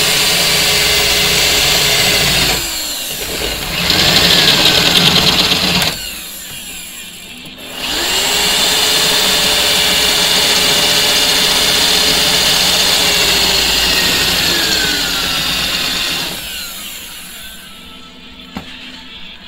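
Electric drill drilling out spot welds in a car's steel rocker panel, running in three bursts, the last and longest from about 8 to 16 seconds in, its motor pitch dropping as each burst winds down. The second, shorter burst about 4 seconds in is the loudest.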